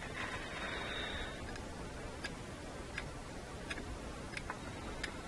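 Hand socket ratchet clicking as its handle is worked: a quick run of clicks in the first second or so, then single clicks a little under a second apart. The mechanism is freshly greased, with its screw loosened so it moves more freely.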